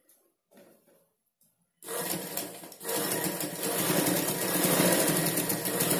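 Black domestic straight-stitch sewing machine running a seam through the cotton blouse fabric, starting about two seconds in after some faint fabric handling, pausing briefly, then running on steadily with a rapid even rhythm.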